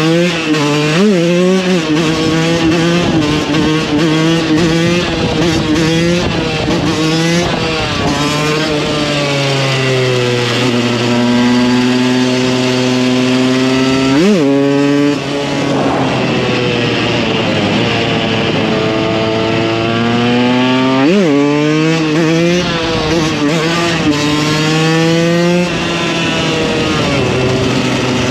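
KTM 125 EXC two-stroke single-cylinder engine on a ridden supermoto, revving up and falling back repeatedly as it pulls through the gears. There are two quick sharp rev blips, about halfway through and again about three-quarters through.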